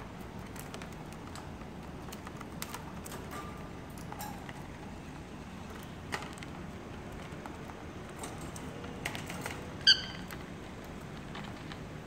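Peach-faced lovebirds in a wire cage: light scattered clicks and taps, with one short, sharp chirp near the end as the loudest sound, over a steady low background hum.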